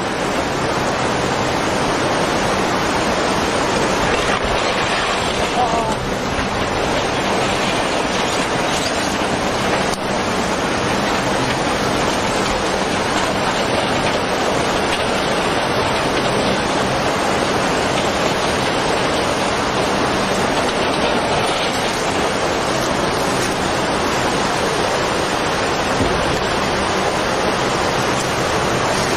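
Tsunami floodwater rushing steadily and carrying debris: an even, unbroken noise of moving water.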